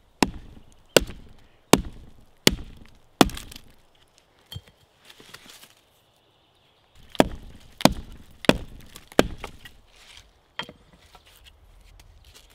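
Axe chopping through a branch laid on a log: two runs of sharp, evenly paced strikes, five and then four, about three-quarters of a second apart, with a few lighter knocks near the end.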